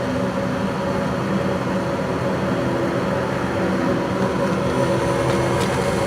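Gas furnace running on a call for heat: a steady motor hum with air rushing.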